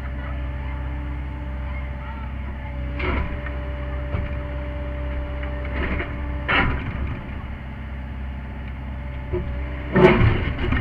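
Sany SY50U mini excavator's diesel engine running steadily, heard from inside the cab. Several short clunks and scrapes sound as the toothed bucket works against a buried boulder, the loudest near the end.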